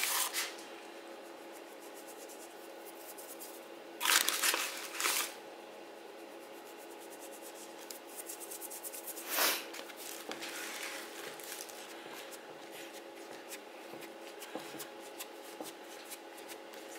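Hands working sticky, high-hydration no-knead bread dough in a bowl: soft rustling and sticky crackling as it is folded and pressed down to degas it after its first rise. There are two louder rustles about four and five seconds in and another near the middle, and a faint steady hum runs underneath.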